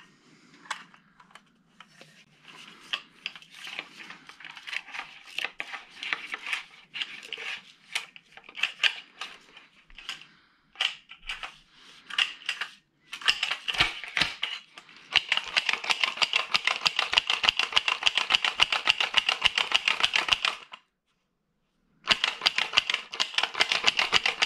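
Hand work on a snowmobile's recoil pull-starter: light clicks and rattles of small parts, then a fast, even run of clicks that stops briefly and starts again.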